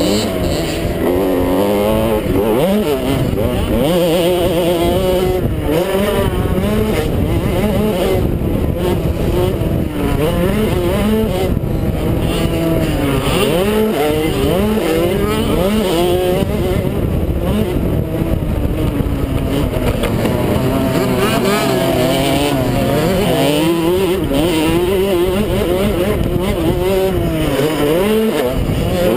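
Small motocross bike's engine heard up close from the rider's helmet, revving hard and repeatedly rising and falling in pitch as it accelerates, shifts and backs off through the turns of a race.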